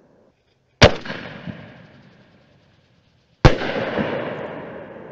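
Two aerial firework shells from TNT's NX Level reloadable canister shell kit bursting, about two and a half seconds apart. Each is a sharp bang followed by a fading tail.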